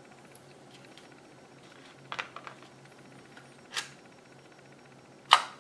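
Handling of 3D-printed plastic transmission parts: a few light plastic clicks and knocks as small pieces are set down on cardboard and the model is picked up and turned, the loudest a sharp knock near the end.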